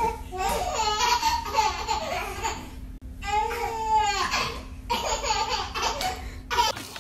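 Baby laughing and babbling in high-pitched bursts, with a short break about three seconds in.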